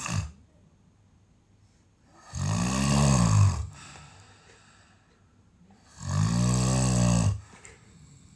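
A sleeper snoring: two long, loud snores about four seconds apart, each one's pitch rising and then falling. A brief sharp sound comes right at the start.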